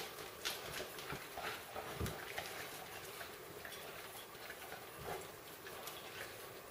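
Dogs eating raw food: irregular wet chewing and licking with small crunching clicks, as one gnaws a raw piece held in its paws and the other licks out a ceramic bowl, and a dull thump about two seconds in.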